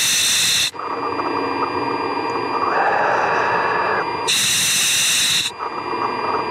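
Hiss and static over the car's radio/intercom audio, switching on and off in sharp-edged stretches, with two louder bursts of high hiss about four and a half seconds apart.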